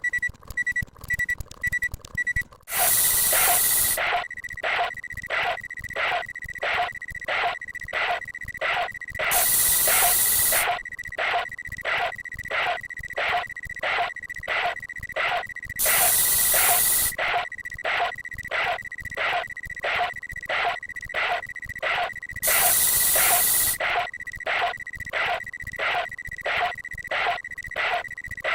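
Spray sound effect: a long hiss of spraying about every six and a half seconds, with short quick spray puffs about twice a second in between, over a steady high tone. A few short beeps come just before the spraying begins.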